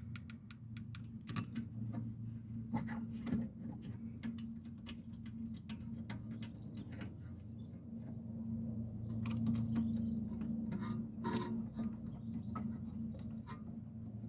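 Scattered sharp clicks and clinks of hand tools and metal parts during brake work, some in quick runs, over a steady low hum.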